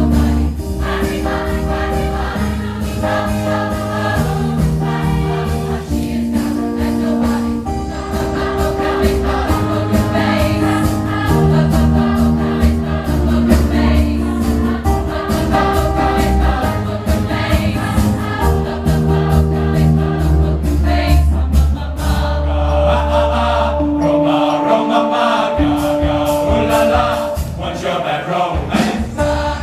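A large mixed choir of teenage voices singing together in held, sustained notes over a deep steady bass accompaniment; the bass drops away about three quarters of the way through and the singing carries on without it.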